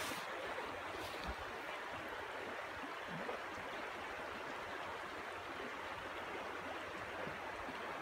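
Steady rushing of flowing river water.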